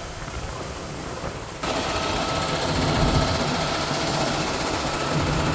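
Engine-driven concrete machinery running steadily, with a low hum. It gets suddenly louder about a second and a half in.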